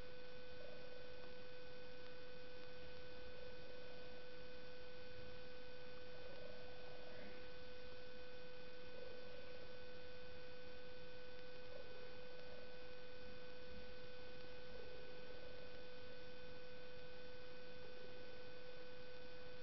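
A steady, even hum with a clear pitch and fainter overtones, like electrical whine in the recording, with faint soft sounds about every three seconds under it.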